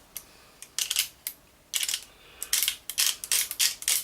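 Metal parts of a freshly greased BSR record-changer mechanism clicking and scraping as it is worked by hand. The clicks come in irregular quick runs with short pauses between them.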